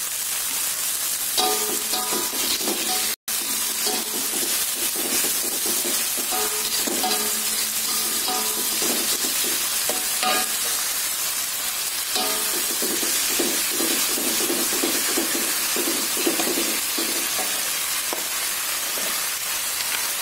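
Chopped tomatoes, shallots and spring onion sizzling in hot oil in a wok while a metal spatula stirs and scrapes them in repeated strokes against the pan, as the seasoning base is sautéed. The sound drops out for an instant about three seconds in.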